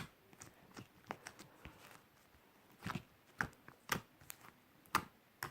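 Homemade borax slime being squeezed and poked by hand, giving a scatter of sharp, irregular clicks and little pops.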